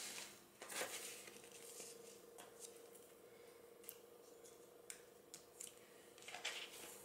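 Faint rustling and small ticks of hands handling paper on a cutting mat: small paper pieces pressed into place and a clear cover sheet lifted off a sticky cutting mat. A faint steady hum comes in about a second in.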